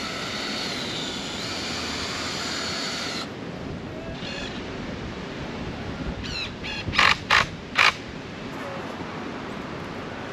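Cordless drill driving wood screws into a 2x2 frame. The motor whines steadily for about three seconds and stops suddenly. A short rising whirr follows, then three brief loud trigger bursts a little past the middle as the screw is seated.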